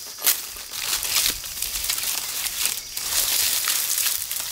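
Dry palm fronds rustling and crackling as they are dragged over grass and gathered by hand, with a sharp snap just after the start.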